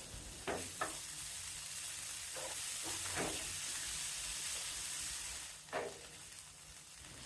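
Cauliflower frying in oil in a pan, a steady sizzle, stirred with about five short scrapes across the pan as it browns.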